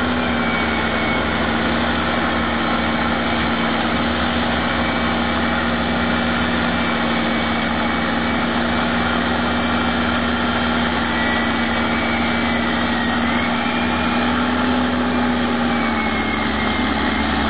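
Caterpillar 621B wheel tractor-scraper's diesel engine running steadily under load while it loads soil, with a faint high whine that dips and rises in pitch. The engine note drops slightly near the end.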